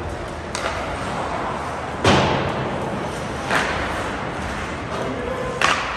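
Ice hockey play: four sharp knocks of sticks and puck against each other and the boards. The loudest comes about two seconds in, over the steady din of the rink.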